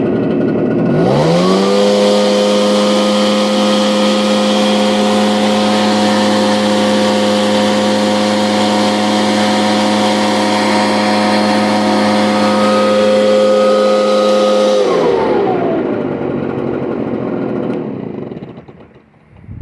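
Echo PB770H backpack blower's two-stroke engine revved up from idle to full throttle about a second in, held at a steady high pitch with a rush of air for about fourteen seconds, then dropping back down near the end. Though hot, it runs at full throttle without stumbling.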